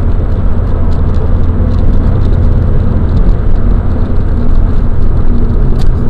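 Steady low rumble of tyre and engine noise heard inside a car's cabin while it drives at road speed.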